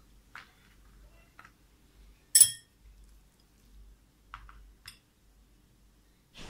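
One sharp clink of a metal utensil against a bowl about two and a half seconds in, with a short ring, among faint taps and soft handling of dough.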